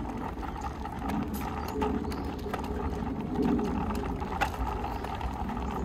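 Bicycle being wheeled along, its mechanism ticking with irregular clicks over a low steady rumble.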